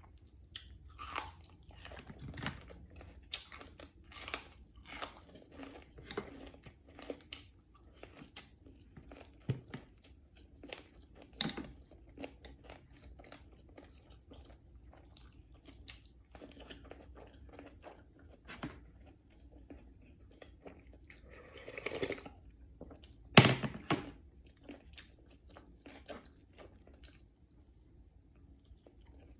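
Close-up chewing and biting of crispy fried pompano, its crust cracking in many short crunches. A louder sharp knock comes about 23 seconds in.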